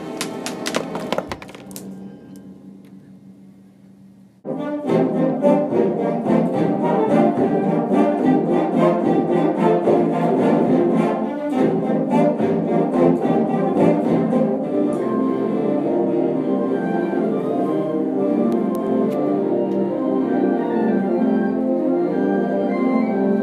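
Orchestral background music. One passage dies away over the first few seconds, and a busier passage starts suddenly about four and a half seconds in.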